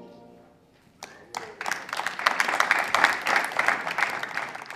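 The tail of an orchestral national anthem fades out, then about a second in an audience breaks into applause, dense clapping that builds and keeps on.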